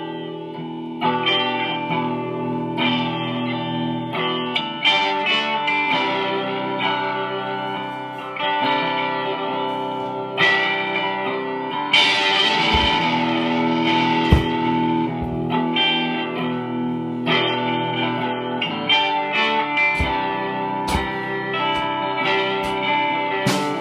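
Guitar-led music playing, its notes changing about once a second, with a few low thumps in the second half.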